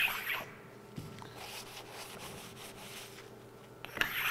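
Fine-grit machinist's stone rubbing over the steel underside of a milling vise, a scratchy rasp that breaks off about half a second in and starts again near the end. It is stoning light surface rust off the vise base. In the gap there is a light knock about a second in and faint handling scrapes.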